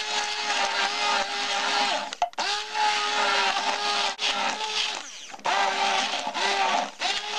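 Immersion hand blender puréeing asparagus soup in a stainless steel saucepan. The motor's whine stops and restarts every second or two, with the churning soup beneath it.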